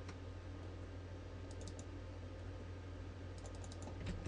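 Computer keyboard and mouse clicks: a few quick clicks about one and a half seconds in, then a quick run of about six more near the end, over a steady low hum.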